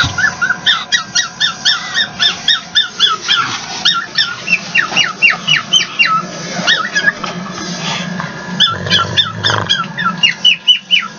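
Pug making rapid, high squeaky whimpering sounds in its sleep, about four or five squeaks a second, in runs with a short break near the end.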